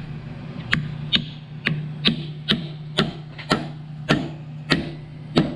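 Mallet tapping a new pinion seal into the nose of a GM 12-bolt differential housing, about ten sharp taps at roughly two a second, worked evenly around the seal's rim. A steady low hum runs underneath.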